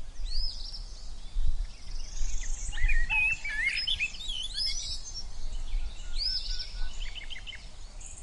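Several songbirds chirping and singing at once, in quick overlapping whistles and trills, over a low rumble.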